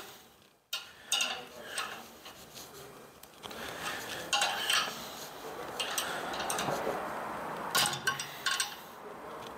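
Small metal clicks and clinks from a 1953 Blue Point brake-line flaring tool as its clamp bar is tightened down on a 3/16-inch brake line. A faint steady scraping runs through the middle few seconds.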